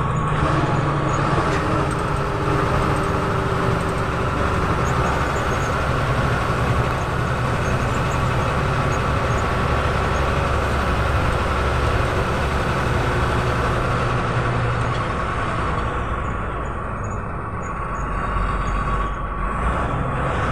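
A bus's diesel engine and road noise heard from inside the cabin, running steadily while the bus drives along a winding road, with a slight lull about sixteen seconds in.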